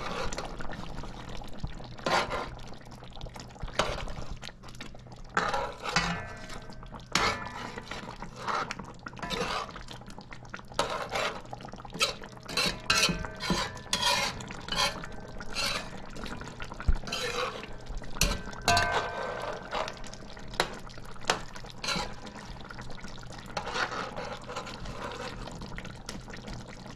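Long metal spoon stirring a thick curry in a large metal pot, repeatedly clinking and scraping against the pot's sides and bottom, some knocks ringing briefly, with the sauce sloshing.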